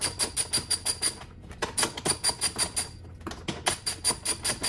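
Ratchet clicking in quick, even runs, about seven clicks a second, with two short breaks, as a 10 mm bolt holding the washer-fluid reservoir is backed out.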